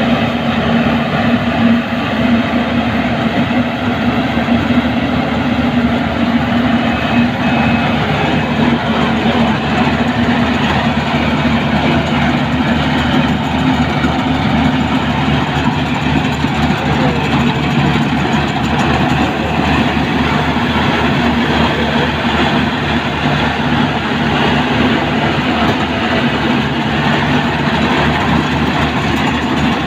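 Rice combine harvester running steadily: a loud, continuous engine drone with a fast, even rattle from the machinery.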